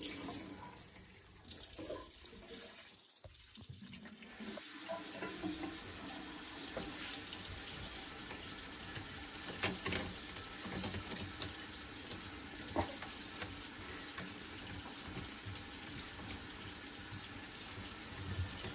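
Water draining out of a bathroom basin through a push-button sink waste, a steady rush that starts about four seconds in after the plug is released.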